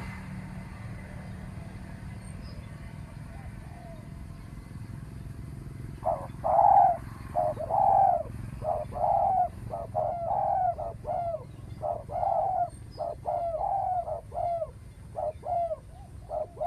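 Spotted doves cooing: after about six seconds of quiet, a run of rapidly repeated coo notes starts and keeps going to the end, over a low steady background rumble.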